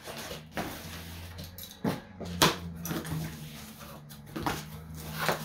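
A cardboard parcel being opened by hand: scattered sharp crackles and rustles of cardboard, about half a dozen, over a low steady hum.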